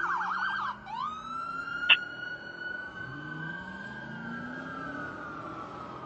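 Fire rescue truck's siren: a fast yelp for the first moment, then a slow wail that climbs and sinks toward the end. A single sharp blip comes about two seconds in.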